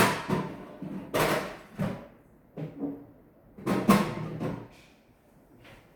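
A series of knocks and clatters from hard objects, such as a tablet and charger cable, being handled and set down on a hard surface. The loudest is at the very start, with another cluster around four seconds in.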